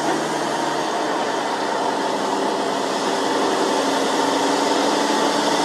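Diesel engine of a heavily loaded Volvo FM420 truck, a 420 hp straight-six, running with a steady, even-pitched drone as the truck approaches, growing slightly louder.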